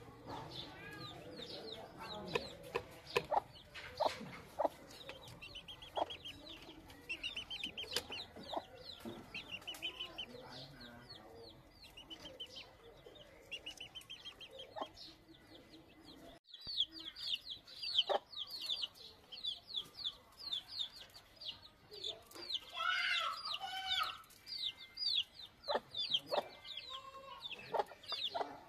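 Chickens in a coop: chicks peeping in long runs of quick, high chirps, with clucking, a louder call about three-quarters of the way in, and scattered sharp taps.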